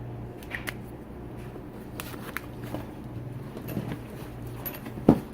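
A plastic screwdriver set being handled, with light clicks and rustling, and one sharp knock about five seconds in. A steady low hum runs underneath.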